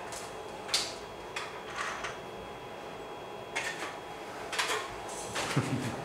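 A few short, scattered clicks and rustles of things being handled, in a quiet room.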